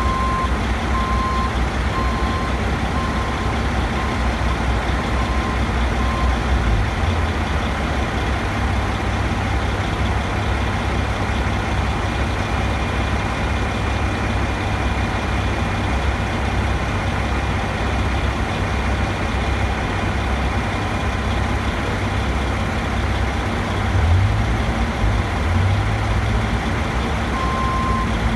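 Heavy construction machinery engine running steadily, its low rumble getting heavier about seven seconds in. A motion alarm beeps about once a second for the first six seconds and starts again just before the end.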